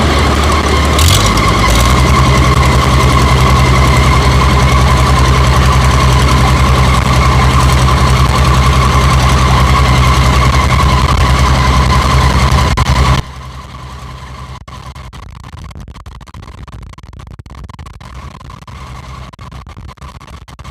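Rice combine harvester's engine running hard with a steady high whine, its pitch stepping up about a second in. Around two-thirds of the way through it drops suddenly to a much quieter, lower run.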